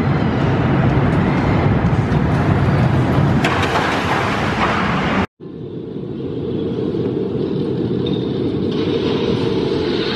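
Chance steel roller coaster train running along its track, a steady rumble. It breaks off abruptly about halfway through, then picks up again and slowly builds.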